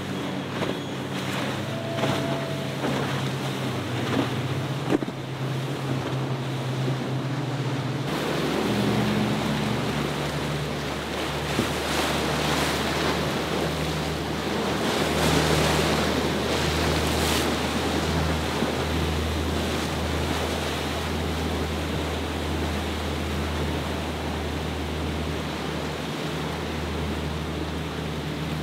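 Motor yacht engines running at speed, with the hiss of water and wake along the hull and wind on the microphone. About eight seconds in, the engine note shifts to a deeper, steadier drone.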